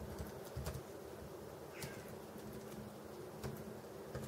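A few scattered key presses on a Bluetooth keyboard's keys, about five soft clicks spread over the seconds, over a steady low hum.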